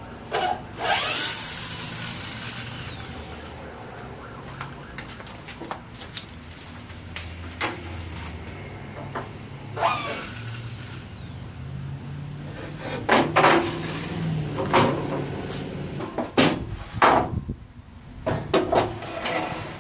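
Cordless drill/driver backing out wood screws: its motor whines up and then winds down in pitch, twice, about a second in and again about ten seconds in. In the second half, wooden boards knock and scrape as they are pulled apart and lifted.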